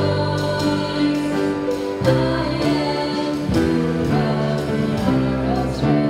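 Student choir singing a song, led by two singers on handheld microphones, with low sustained notes underneath.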